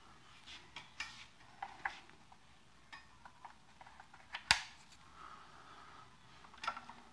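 Speaker cable being handled and fastened into the cable management of a loudspeaker tilting adaptor: scattered light clicks and rubbing, with one sharp click about four and a half seconds in.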